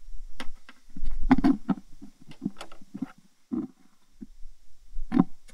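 A plastic bucket being handled and turned over: a string of short knocks and clunks, with small clicks of hardware, as the wooden block is taken back off the eye bolt. The knocks are busiest in the middle, with one more near the end, over a faint low rumble.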